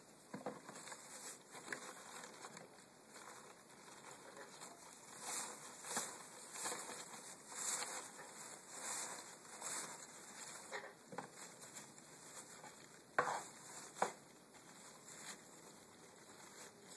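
Shredded nesting material rustling and crinkling in irregular spells as a parakeet burrows through it and pushes it around to shape a nest, with two sharper clicks late on.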